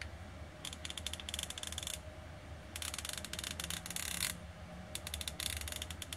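Gedore 1/2-inch drive 60-tooth ratchet clicking as a socket on it is spun by hand, in three runs of fine, rapid clicks.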